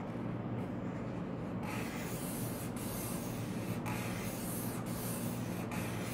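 Felt-tip permanent marker drawn across paper on a clipboard: a scratchy rubbing that comes in strokes of about a second each, starting a little over a second in. A steady low hum runs underneath.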